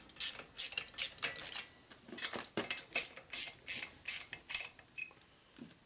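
Ratchet wrench clicking in short strokes, about three sharp clicks a second, as a bolt is drawn in. The clicking stops about a second before the end.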